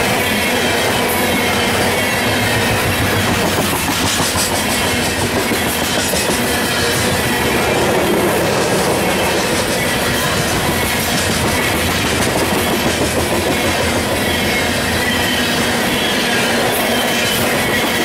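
Freight coal cars rolling past close by: a steady, loud rumble and rattle of steel wheels on the rails, with a faint high squeal from the wheels.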